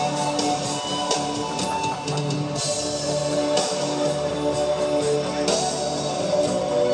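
Panpipe music: held, steady notes over a rhythmic backing with regular drum hits.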